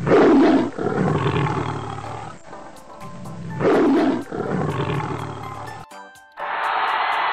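Recorded leopard roar from a virtual augmented-reality leopard, played twice about three and a half seconds apart. Each roar opens loud and then trails off. A different, duller sound starts near the end.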